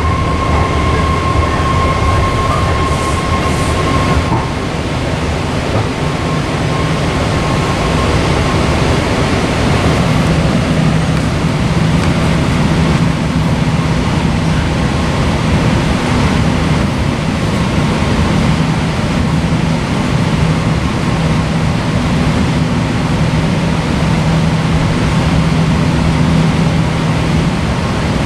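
Inside a moving BART Fleet of the Future train car: a loud, steady rumble and roar of the wheels on the rails. A high, steady whine is heard over it for the first four seconds or so.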